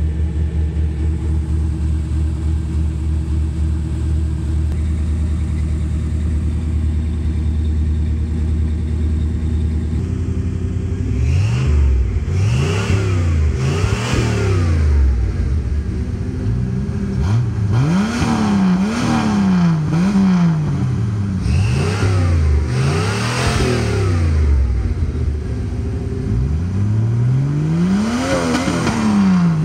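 A car engine idles steadily for about the first ten seconds. Then the 1996 Jeep Cherokee's engine, running with no muffler, is revved again and again: about seven quick blips, each rising and falling in pitch.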